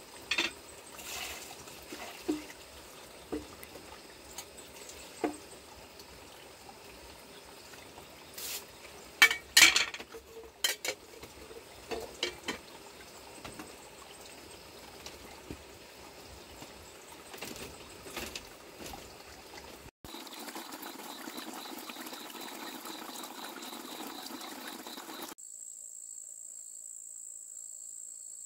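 Scattered knocks and clatter of objects handled on a bamboo floor, the loudest a cluster about nine to ten seconds in. Then a few seconds of steady hiss, and near the end a steady high chirring of crickets.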